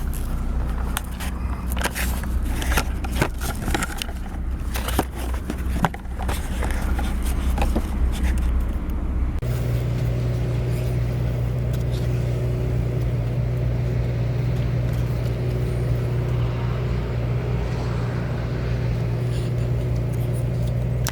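An engine running steadily, with clicks and scraping handling noises over it in the first half; about halfway through, the clicking stops and the engine settles into an even, steady hum.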